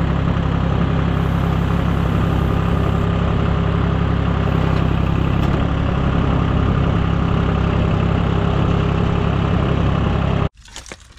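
Engine running steadily at a constant speed with a strong low rumble, cutting off abruptly near the end.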